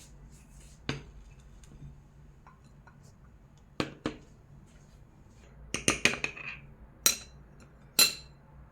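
Dishes and glassware clinking as they are handled and set down: single sharp clinks, a quick cluster of them about six seconds in, and the last one ringing briefly.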